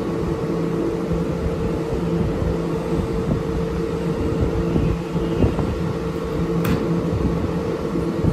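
Keihan 2600-series electric train standing at the platform, its on-board equipment giving a steady hum with two held tones over a low rumble. A single sharp click sounds near the end.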